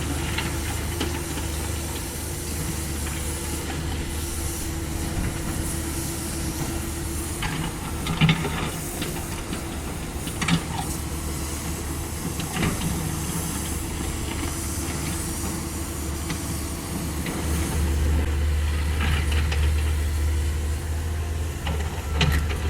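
The diesel engine and hydraulics of a CAT 305.5E2 mini excavator running steadily, getting louder for the last few seconds. A few sharp knocks sound over it, the loudest about eight seconds in.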